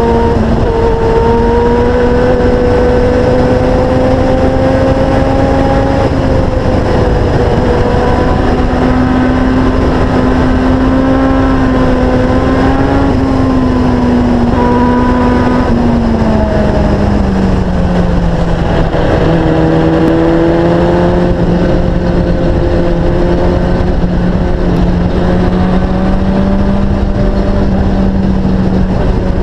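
Sportbike engine running hard at speed under heavy wind rush. Its pitch holds steady through the curves, then falls a little past halfway and settles lower as the revs drop.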